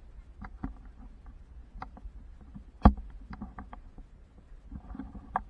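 Handling noise from a small camera being moved about low over sand: scattered light clicks and rubbing, with one loud knock about three seconds in and a smaller one near the end.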